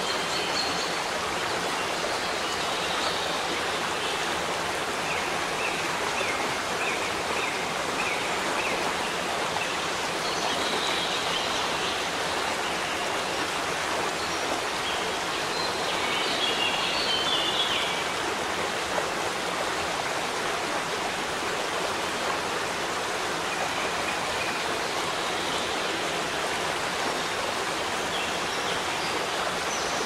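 Waterfall pouring steadily with an even rushing noise, while small birds chirp faintly now and then over it.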